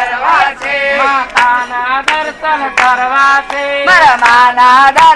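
Devotional group singing in praise of the goddess, with a strong lead voice, kept in time by hand claps about every three-quarters of a second.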